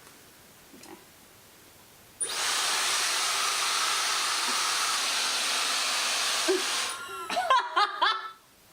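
Dyson Supersonic hair dryer switched on about two seconds in, blowing with a steady rush of air and a thin high whine, then switched off about five seconds later.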